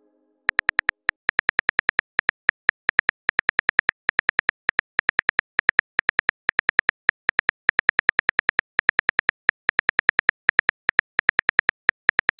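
Phone keyboard typing sound effect: a fast, even run of short clicks, about seven or eight a second, one per letter as a text message is typed out.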